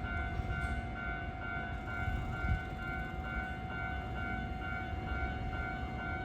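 Japanese level-crossing warning signal sounding at a Hankyu Railway crossing: an electronic bell pulsing about two times a second over a steady tone, with a low rumble underneath.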